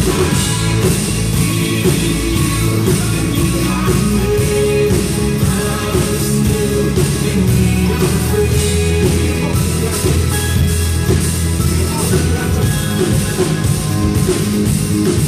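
Live rock-style worship band playing an instrumental passage, with a steady drum beat, bass and guitar.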